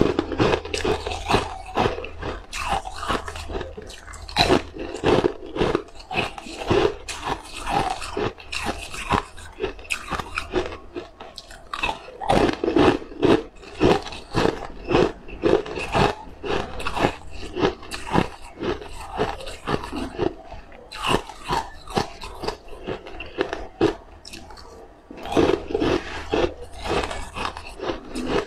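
Close-up biting and chewing of crisp, sesame-topped cookies: a dense run of sharp crunches with only a brief lull a few seconds before the end.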